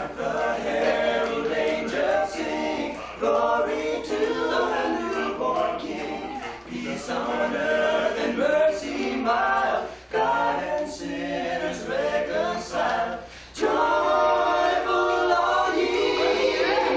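Men's a cappella vocal group singing in close harmony, unaccompanied, in phrases broken by brief pauses every few seconds.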